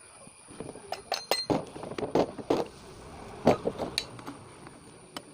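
Hammer tapping on the stuck flywheel of a two-stroke chainsaw engine, with its nut left loosely on, to knock the flywheel free of the crankshaft. A string of about ten irregular metallic clinks and knocks, a few with a brief high ring.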